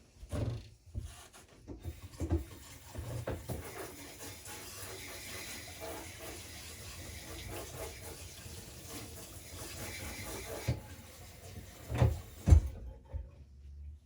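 Compressed air hissing steadily for about nine seconds as it blows dust out of a copper-and-aluminium computer heatsink. A few handling knocks come before the hiss, and two sharp thumps, the loudest sounds, come just as it stops.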